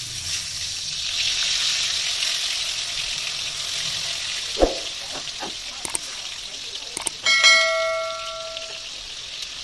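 Spice-coated fish pieces sizzling as they fry in hot oil in a metal kadai, with a few sharp knocks of a metal utensil against the pan. About seven seconds in, the loudest sound: a metal strike on the kadai that rings out for about a second and a half.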